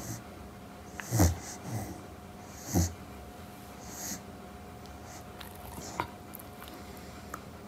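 Chow Chow puppy making short grumbling sounds as it lies half-awake, fussing at being woken. The two loudest come about a second in and just under three seconds in, with fainter ones after.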